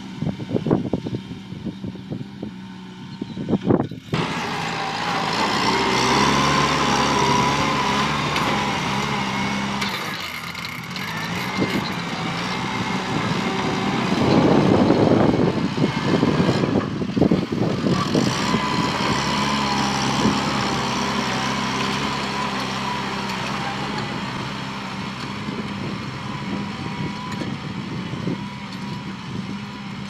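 Kubota tractor's diesel engine running steadily under load as it pulls a disc plough through the soil; it is loudest as it passes close by around the middle, then fades as it drives away. Gusts of wind hit the microphone in the first few seconds.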